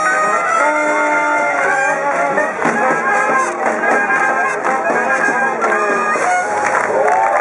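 Live Dixieland jazz band playing: trombone, trumpet and tuba over a strummed banjo, with many notes held and sliding.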